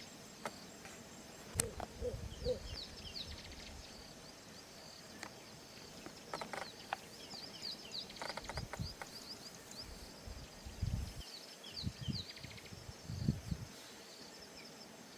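Faint wetland nature ambience: a background chorus of small, high, rapidly repeated chirps from birds and insects. A sharp click comes about a second and a half in, and a few short low thuds or croaks follow in the second half.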